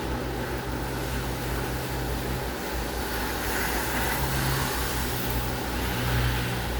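Light to moderate rain falling steadily on concrete, an even hiss over a low steady hum. The hiss swells for a second or two a little past halfway.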